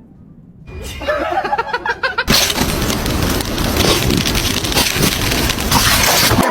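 A dog whines briefly about a second in, then a loud rushing, rumbling noise sets in suddenly and runs on.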